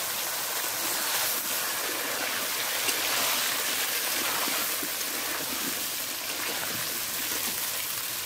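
Pointed gourd pieces sizzling in hot oil in an iron wok, just after being tipped in: a steady, loud hiss that eases a little over the seconds.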